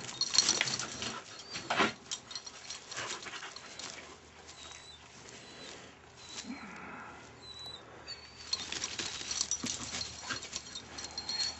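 A dog close to the microphone, with sharp knocks and rustling from handling, busiest in the first couple of seconds and again near the end.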